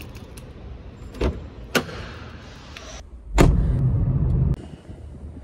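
Car door being unlocked with the key and opened: two sharp clicks about a second apart. A sharp thud follows about three seconds in, then about a second of loud low car rumble that cuts off suddenly.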